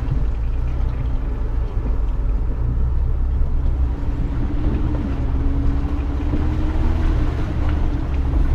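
Off-road 4x4 engines running slowly, a steady low rumble, with a steady engine tone joining about halfway through.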